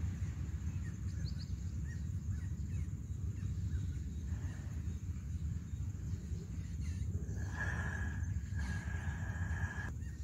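Outdoor ambience: a steady low rumble with a bird calling in a high, drawn-out note that comes in about seven and a half seconds in and repeats.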